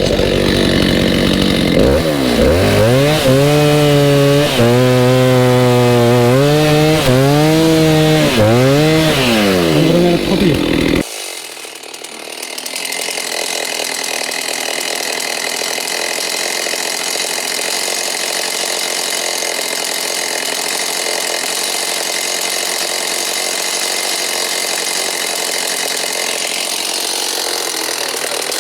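Chainsaw cutting through a thick walnut log, the engine pitch rising and falling as it works the cut. About eleven seconds in the sound changes abruptly to a steadier, thinner running noise with no deep tones.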